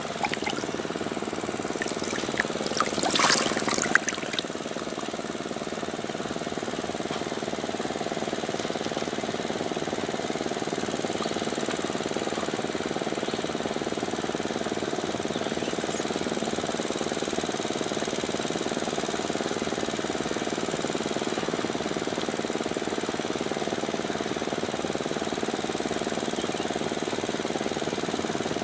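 A steady engine drone runs throughout. About three seconds in there is a brief rustling burst.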